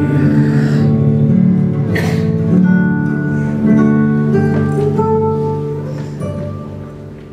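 Solo classical guitar playing the closing phrases of a song, with plucked notes and a strummed chord about two seconds in, then the last notes ringing and fading away near the end.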